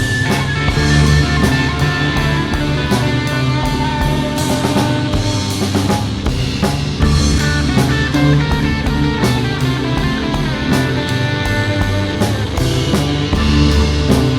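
Instrumental rock music: a lead guitar over a full drum kit and bass, with a steady beat.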